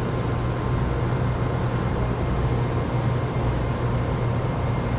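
Steady low mechanical hum with an even hiss, like a motor or ventilation running without change.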